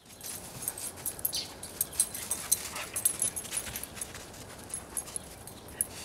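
A dog whining and yipping in play, with many sharp little high clicks and jingles throughout.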